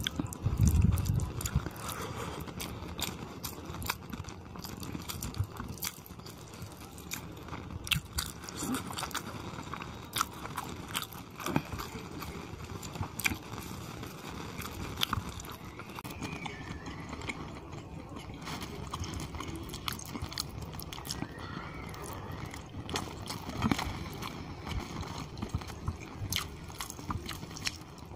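Close-miked eating of chicken curry and khichuri by hand: chewing and wet mouth smacks, with many small sharp clicks throughout. A louder low thud comes about a second in.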